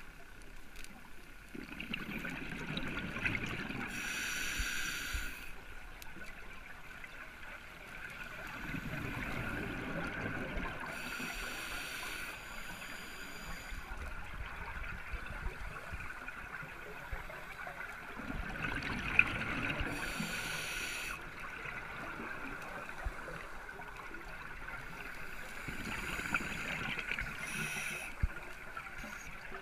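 Scuba diver breathing through a regulator underwater: rumbling, gurgling bubble exhalations alternating with short hissing inhalations, a breath about every eight seconds.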